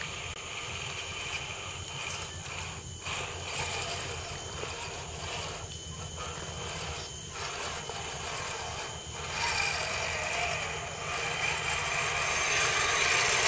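Electric scale RC crawler trucks driving down a dirt trail slope: a steady motor and gear whir with tyre noise on the dirt, getting louder near the end as a truck comes close.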